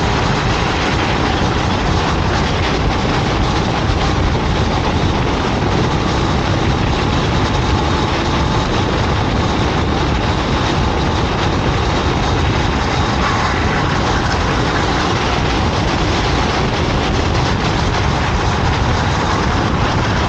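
Racing kart running at speed on track: a loud, steady mix of engine and rushing noise with no breaks.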